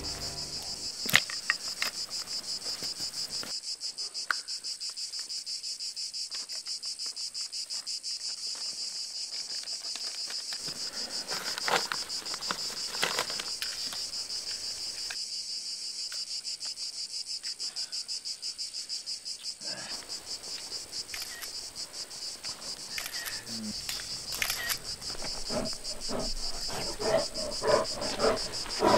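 Cricket chirping: a steady, fast-pulsing high trill. Its use against a snowy early-spring forest marks it as a sound effect of comic silence. A few sharp clicks and snaps come about a second in and again about twelve seconds in, and the last few seconds are busier with knocks and rustles.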